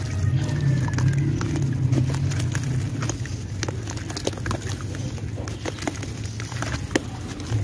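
A dry red dirt chunk being crumbled by hand, giving scattered crackles and small crunches as pieces break off and drop into the watery mud below. A steady low rumble runs underneath, loudest in the first few seconds.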